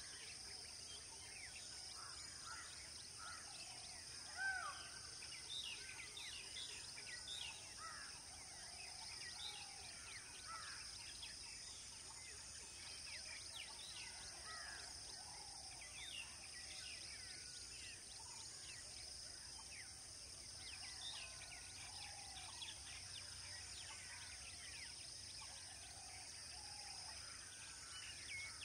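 Faint outdoor ambience of many birds chirping and calling in short scattered notes over a steady high-pitched insect drone, with one louder call about four seconds in.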